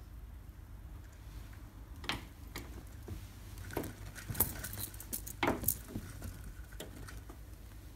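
Irregular light clicks and rattles as a pet squirrel monkey climbs the vertical window-blind slats on its lead. The lead's metal clip jingles now and then, and the louder rattles come about two, four and five and a half seconds in.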